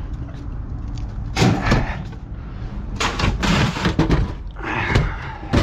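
Scrap metal being handled and set down: a few bangs and thuds, with a steady low rumble underneath.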